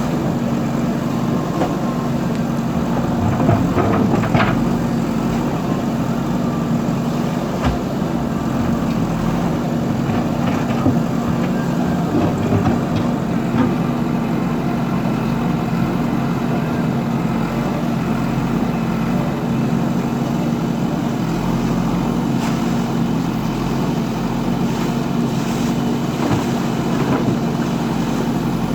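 Diesel engine of a JCB earthmover running steadily at a constant pitch, with a few sharp knocks.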